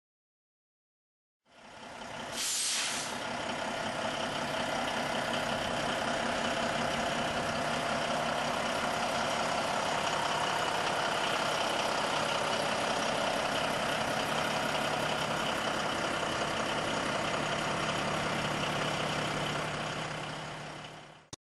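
Semi truck's diesel engine running steadily, with a sharp air-brake hiss about two and a half seconds in; the sound fades in and cuts off abruptly near the end.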